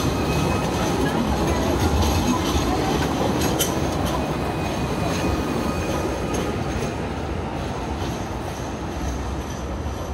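Sydney Light Rail tram rolling past at close range and moving away, its running noise fading as it goes.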